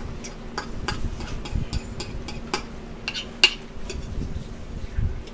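Metal fork clinking and scraping against a bowl as tuna is mixed and scooped: a run of irregular short clinks, one sharper than the rest about three and a half seconds in.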